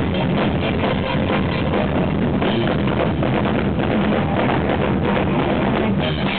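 Live jazz-rock fusion band playing: electric guitar, electric bass and drum kit, recorded loud and distorted by an overdriven camera microphone.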